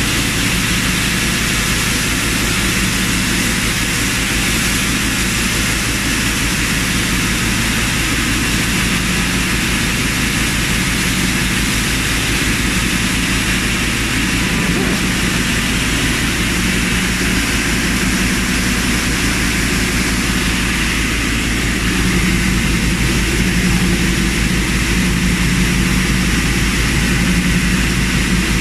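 An artist-brush handle machine running steadily, a loud continuous mechanical whir with a low hum that swells and fades every second or two.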